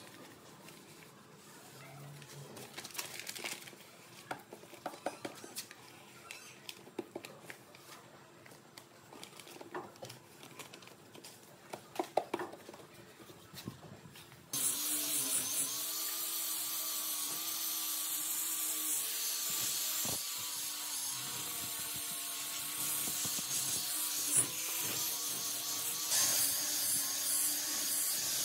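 Light clicks and taps of small handling work, then about halfway in a loud, steady hiss of air or gas spraying starts suddenly and keeps going.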